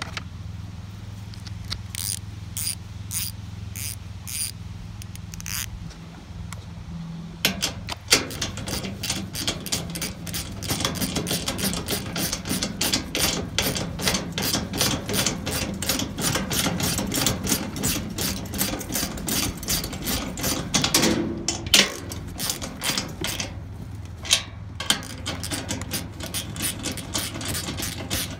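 Hand ratchet wrench with a 19 mm socket clicking rapidly as it runs a lock nut down onto a bolt of a steel cart frame, with a couple of short pauses. A few separate clicks come first, as the socket is taken out and fitted.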